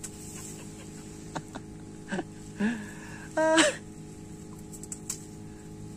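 A short, loud vocal sound from a person, like a throat-clearing or sneeze, about three and a half seconds in, with a few quieter short vocal noises just before it, over a steady low hum.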